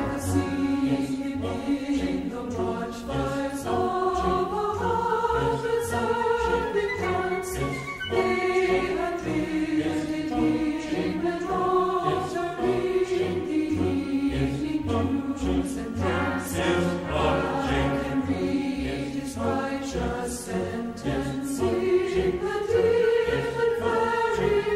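Background music: a choir singing slow, held notes that move step by step.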